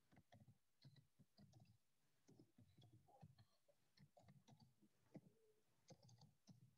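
Faint computer keyboard typing: irregular key clicks, several a second, with short pauses between runs.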